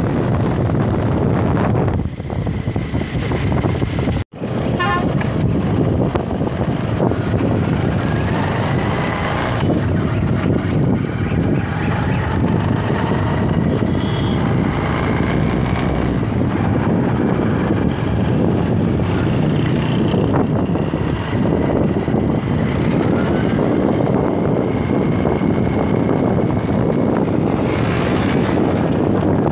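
Steady road and wind noise from a moving vehicle, with wind rushing over the microphone and faint horn tones from traffic at times. The sound cuts out for a moment about four seconds in.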